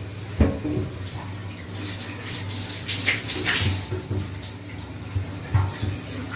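A kitten's paws scrabbling and skidding on a slick bathtub's surface, with irregular scuffs and a few sharp thumps, the loudest about half a second in. A steady low hum runs underneath.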